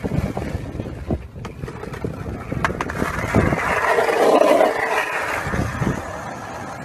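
Skateboard wheels rolling over asphalt, with wind buffeting the microphone. A few sharp clicks come from the board in the first half, and the rolling noise swells louder about halfway through.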